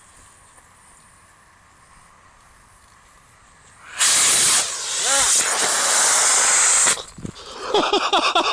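Model rocket motor igniting about four seconds in and burning with a loud, steady rushing hiss for about three seconds before cutting out. Excited voices follow near the end.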